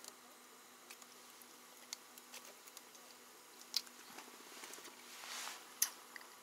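Faint scattered clicks and rustles of hands handling a small fish and its hook and line, with a couple of sharper ticks and a short rustle near the end, over a faint steady hum.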